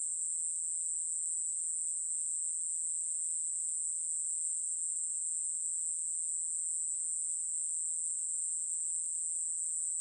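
A 여치베짱이 katydid singing a continuous, very high, even buzz with no breaks or pulses.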